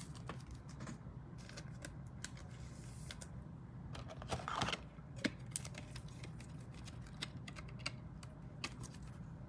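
Faint handling of a trading card: scattered light clicks and taps, with a brief rustle about four and a half seconds in.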